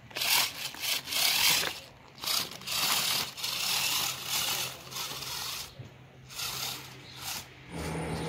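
Treaded plastic wheels of a homemade RC 6x6 truck crunching and scraping over loose gravel as it drives, in a run of uneven bursts. A low electric-motor hum comes in near the end.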